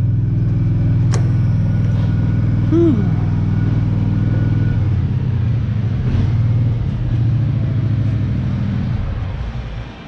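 Kubota SVL75-3 compact track loader's diesel engine idling steadily, then shut off about nine seconds in. A sharp click about a second in.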